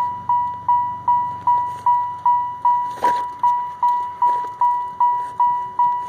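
A car's warning chime dinging steadily, about two and a half dings a second, each a single clear tone that fades quickly. A brief knock sounds about three seconds in.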